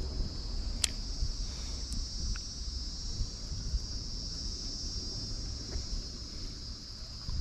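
Steady high-pitched insect chorus, with a low rumble underneath and a sharp click about a second in.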